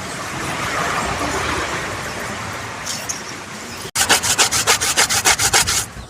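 Coconut being grated by hand: fast, even rasping strokes, about six a second, starting about four seconds in after a steady hiss.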